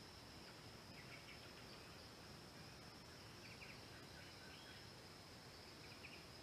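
Faint forest ambience: a steady high-pitched insect drone, with a few short bird chirps and trills now and then.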